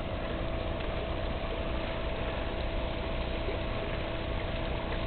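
Steady hum of a running machine, most likely the pump of the newly built koi pond waterfall, with a faint even wash of falling water over it.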